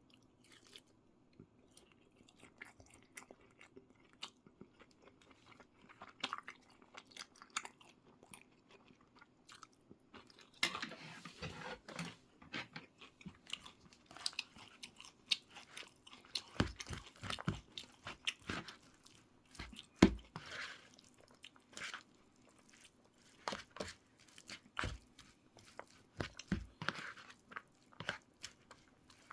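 A person chewing and crunching food, with many short sharp clicks scattered through and a faint steady hum beneath; the eating sounds grow louder about ten seconds in.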